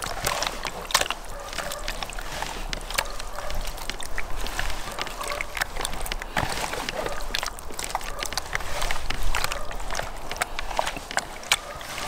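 Hands squelching and turning chunks of raw sturgeon in a wet citrus marinade in a plastic bowl: irregular wet slaps, squishes and clicks as the pieces are stirred.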